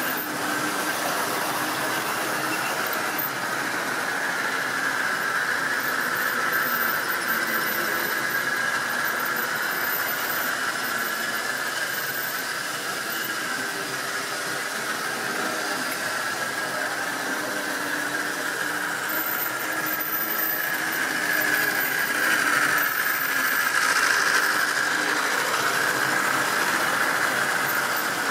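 Tri-ang model train running on the layout's track: a steady high-pitched whine and squeal over the running noise of the wagons. About three-quarters through, the whine sags in pitch and the sound grows louder for a few seconds.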